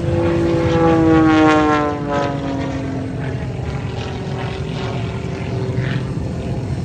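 Propeller-driven aerobatic biplane passing close by, its engine note falling in pitch as it goes past. It is loudest about a second and a half in, then settles into a steadier drone as it moves away.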